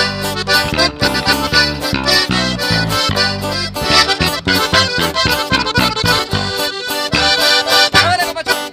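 Live sierreño band playing an instrumental passage: accordion carrying the melody over a steady bass line, with no singing.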